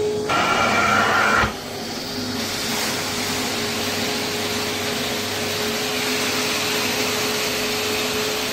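Carpet extraction machine's suction running as the cleaning wand is pulled across the carpet, a steady rush of air with a hum. For the first second and a half a higher whistling whine sits on top, then it cuts off suddenly to a steadier rush.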